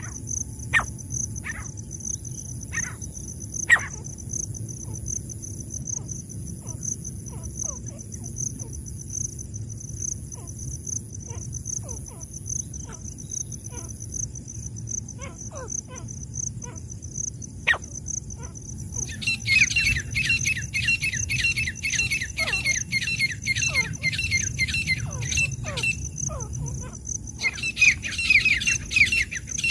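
Francolin (teetar) calling. Scattered single sharp notes come first, then about two-thirds of the way through a fast, continuous run of high repeated notes begins, breaks off briefly and starts again near the end.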